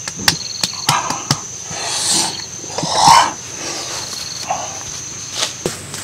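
Open wood fire crackling with sharp snaps, over a steady high insect drone. A louder rushing swell comes about two seconds in and again, loudest, about three seconds in.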